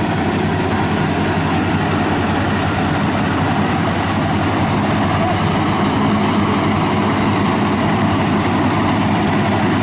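FMWorld WD 102pro rice combine harvester running steadily as it cuts rice in soft, boggy ground, its engine and threshing machinery making one even, unbroken drone.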